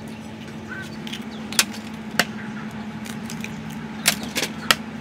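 About five sharp, irregularly spaced clinks and taps at a stainless steel mixing bowl during food prep, over a steady low hum.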